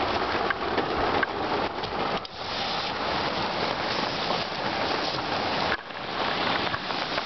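Hail pelting down hard in a dense, steady clatter, heard from inside a vehicle with the hail striking its roof and windows.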